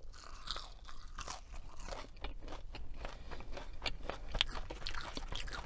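Close-miked chewing of crunchy fast food: a steady run of small, crisp crunches and mouth clicks.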